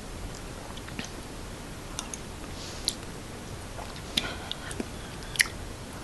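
Mouth sounds of a person tasting soup from a spoon: small, scattered clicks and smacks as she eats, against a quiet room.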